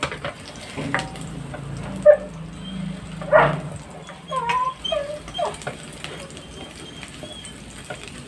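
Minced garlic sizzling in cooking oil in a ceramic-coated wok while a spatula stirs it. Several short pitched cries sound over it from about two seconds in, the loudest near two and three and a half seconds.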